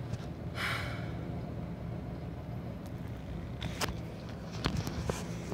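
Car engine and road rumble heard from inside the cabin, steady and low, with a brief hiss about half a second in and a few light clicks later on.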